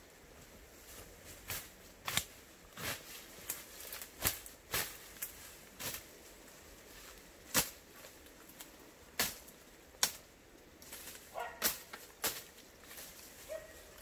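Footsteps in rubber boots pushing through dense weeds and brush, with a hand tool slashing at the plants: irregular sharp swishes, snaps and crackles of stalks and leaves, about one every half second to second.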